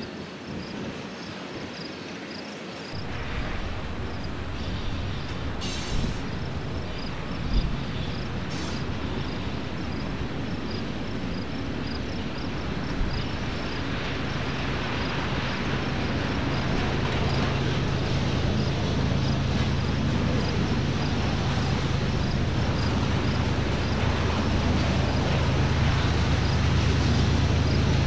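Union Pacific diesel locomotive engines running under load as a freight train approaches, growing steadily louder from about three seconds in.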